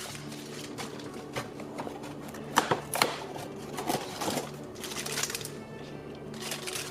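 Small Playmobil plastic pieces and calendar packaging being handled: a run of clicks and rustles, loudest about two and a half seconds in, over soft background music.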